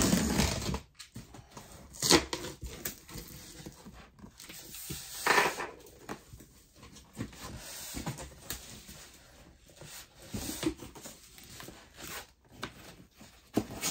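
Cardboard shipping box being opened: packing tape on the top seam torn and peeled away, then the flaps pulled open with cardboard rubbing and scraping. Several short, sharp rips stand out: one at the start, and the loudest about two and five seconds in.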